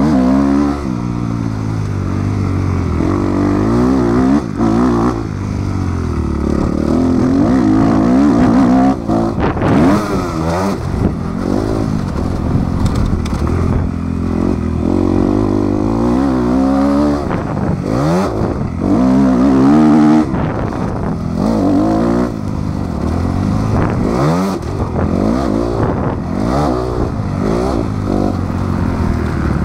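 Motocross bike engine heard close up from the rider's helmet, its pitch climbing and dropping again and again as it revs up and falls off around the track. Scattered knocks and clatter over the engine.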